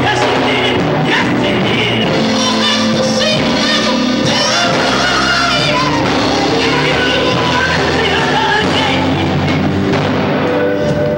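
Live gospel group singing, a woman leading with men's voices behind her, over electric guitars.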